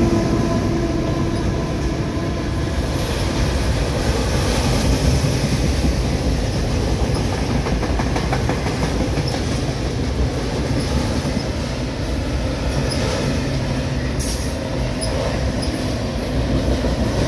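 Freight train cars, mostly autoracks, rolling past at close range: a steady rumble and hiss of steel wheels on rail with a few sharp clicks. The last diesel locomotive's engine note fades out just at the start.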